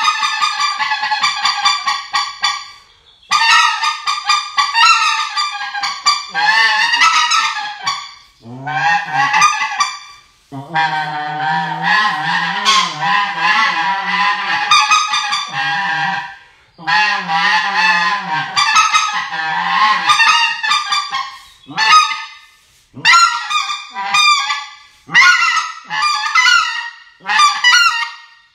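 Acrylic goose calls blown to imitate white-fronted geese. There are several runs of fast honks and clucks with short pauses between them, then a string of separate single honks about one a second near the end.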